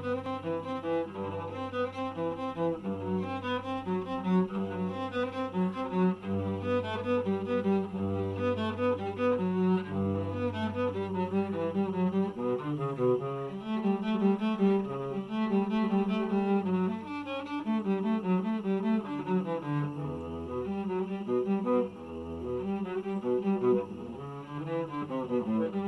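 Cello bowed solo, playing a slow melody. In the first half, long low notes repeat under it; about halfway through the melody moves higher and the low notes drop away.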